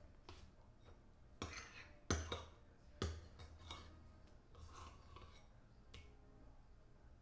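Metal spoon clinking and scraping against a bowl while scooping deviled-egg yolk filling: a few sharp clinks, loudest between about one and a half and three seconds in, with fainter taps around them.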